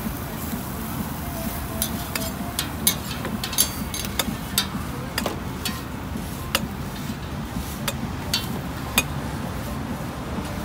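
Sharp clicks and taps of metal tongs and serving utensils, about a dozen spread irregularly over several seconds, over a steady low background rumble of market noise.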